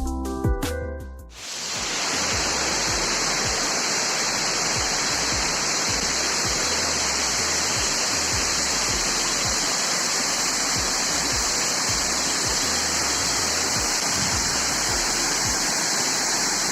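Brief music that stops about a second in, then the steady rushing of a waterfall.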